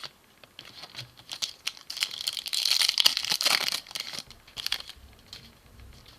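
Plastic trading-card pack wrapper crinkling and tearing as a pack is handled and ripped open, loudest in a dense stretch about two seconds in.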